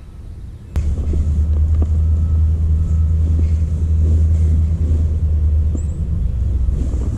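Electric trolling motor switched on with a click about a second in, then running with a steady low hum until it eases off near the end.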